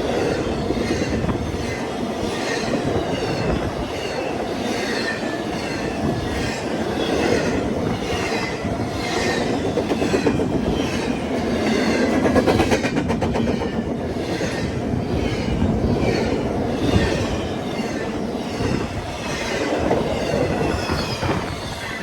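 CSX freight train cars rolling past, their wheels clacking over the rail joints at about two beats a second over a steady rumble.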